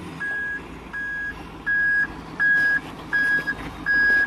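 Reversing alarm on heavy equipment beeping, one steady high tone repeating at a regular pace of about 0.7 seconds, six beeps, louder from about two seconds in, over a low engine running.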